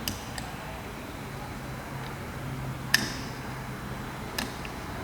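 A few sharp metallic clicks and clinks of small parts and tools being handled on an Andis Master hair clipper, the loudest about three seconds in, over a low steady hum.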